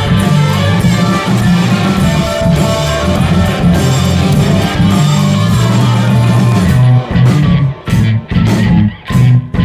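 Psychedelic rock band playing, with electric guitar, bass and drums. About seven seconds in, the band breaks into a run of short stop-start hits with brief gaps between them.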